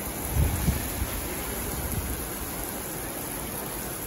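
Heavy rain pouring down steadily onto a concrete lot, a constant hiss. A couple of brief low thumps on the microphone come about half a second in.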